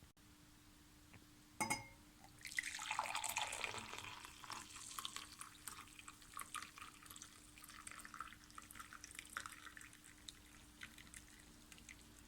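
A single clink, then liquid poured into a vessel, a steady run for about two seconds that breaks into trickling and scattered drips for several more seconds.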